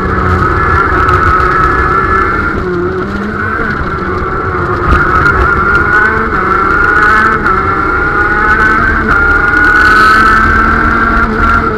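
KZ shifter kart's 125cc two-stroke engine at full throttle, heard close up from the kart itself, its pitch climbing steadily as the kart accelerates out of a corner onto the straight, with a brief break about seven seconds in.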